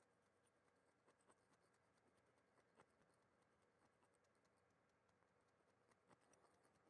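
Near silence: room tone with a few very faint scattered ticks.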